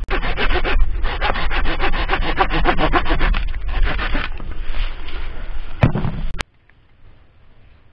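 Hand pruning saw cutting through a green eucalyptus branch with quick back-and-forth strokes. About six seconds in there is a single sharp knock, and then the sound cuts off suddenly.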